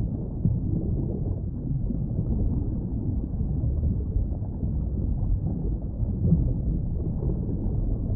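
Steady low underwater rumble of moving water, with no distinct calls or clicks.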